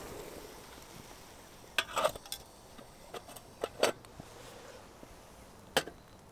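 Light knocks and clinks of hard objects being handled, about seven short strokes in a few seconds, over faint steady background hiss.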